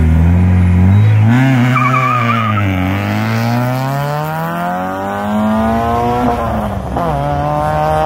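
Small hatchback rally car's engine held on high revs, then launching hard with a brief tire squeal about a second in and accelerating away, the engine note rising through the gears with shift drops at about three seconds and again near six to seven seconds as it pulls away up the road.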